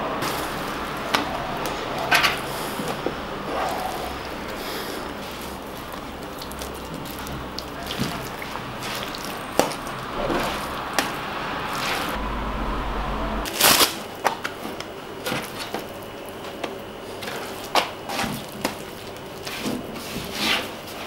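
Sticky, high-hydration pinsa dough being scraped from a glass bowl and folded and shaped by hand on a wooden counter: wet squishing and slapping, with scattered sharp taps and one louder knock partway through.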